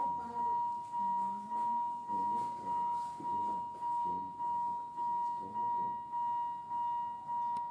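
A steady high electronic tone that swells and fades about one and a half times a second, like a repeating warning or alarm beep, with faint human voices beneath it.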